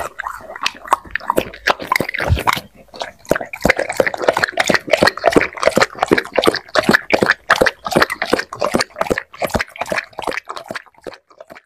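A dog lapping liquid food from a plate, with rapid wet slurping clicks of its tongue, several a second. The lapping thins out and stops near the end.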